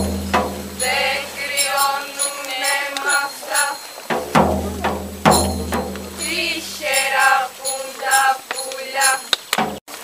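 Dance music with drum and tambourine strikes and a wavering melody line over a deep drone that swells twice, the second time about four seconds in.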